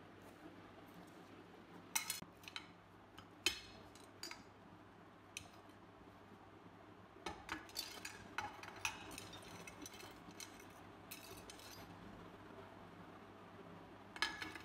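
Rusty steel parts of a disassembled Beretta Model 1934 pistol clinking against a glass baking dish and each other as they are set down in it one by one. A series of separate sharp clinks, coming more often from about seven seconds in.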